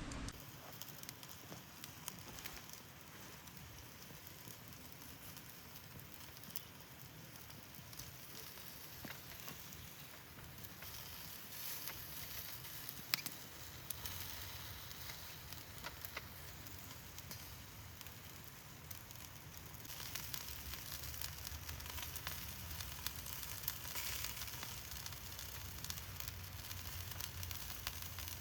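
Campfire crackling: scattered sharp pops and snaps over a steady hiss, one pop louder about halfway through.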